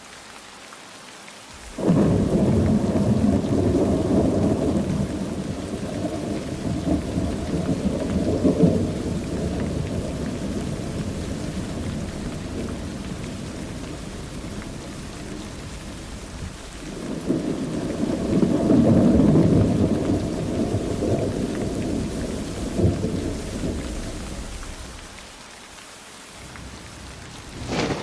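Steady rain with two long rolls of thunder. The first breaks suddenly about two seconds in and rumbles on, slowly fading, for some fifteen seconds. The second swells up a little later and dies back to the rain near the end, and another thunderclap starts just as it ends.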